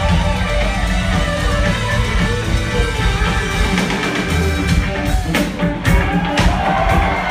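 Rock band playing live, heard from within the audience: electric guitar over bass and drums, with a run of sharp drum and cymbal hits past the middle.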